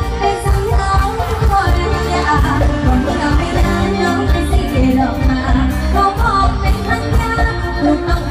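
A woman singing an Isan mor lam song into a microphone over a live band, amplified through a PA, with a steady beat and heavy bass.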